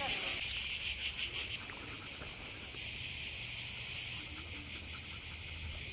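A steady, high-pitched chorus of summer insects chirring. It drops sharply in level about a second and a half in, then carries on more faintly.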